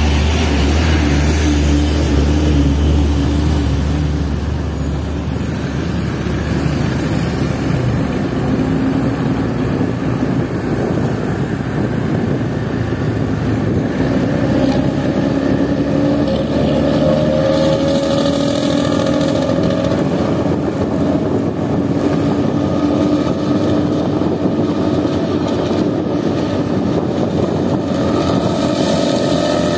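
Diesel bus engine running under way with steady road noise. Its note rises as it accelerates from about 14 seconds in, drops back, then climbs again near the end.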